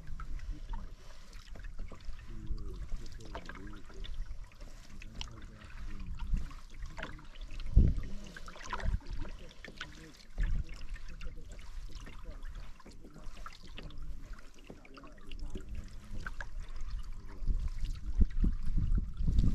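Canoe paddling: water splashing and trickling off the paddle, with scattered small clicks and a few low thumps.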